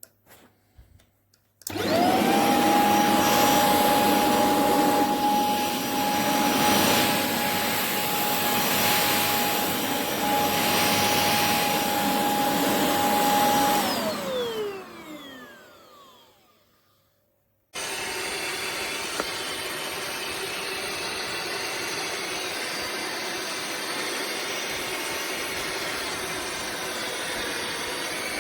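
A stick vacuum cleaner is switched on after a few clicks, spins up to a steady high motor whine with rushing air, and runs for about twelve seconds. Then it is switched off and winds down with a falling whine. A few seconds later a different steady hissing rumble starts abruptly and carries on.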